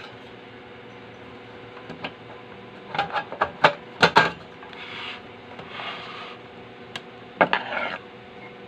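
Sheet-metal cover of a Konzert KCS-212 amplifier being fitted onto its chassis by hand. A cluster of knocks and clicks comes about three to four seconds in, then metal scraping as the cover slides into place, and more knocks with scraping near the end.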